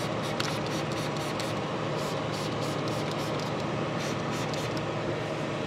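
A cloth wiping over the oil lubrication unit's screen fittings in a series of soft, irregular rubbing strokes, over a steady background hiss and hum.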